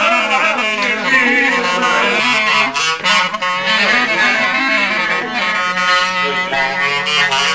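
Clarinet playing a lively Greek folk melody over a steady low held note.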